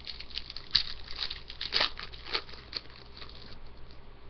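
Cardboard trading cards being shuffled and slid against one another in the hands, a quick series of short scratchy, crinkly strokes that stop about three and a half seconds in.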